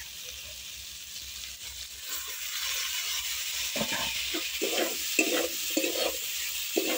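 Boiled freshwater mussel meat frying with potatoes in a metal wok: a steady sizzle grows louder about two seconds in, then a metal spatula scrapes and stirs against the wok in repeated strokes.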